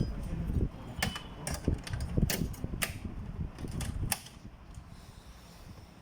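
Sharp plastic clicks and knocks, with low handling rumble, as the OKI Pro8432 printer's cover is fitted back on; the handling stops about four seconds in.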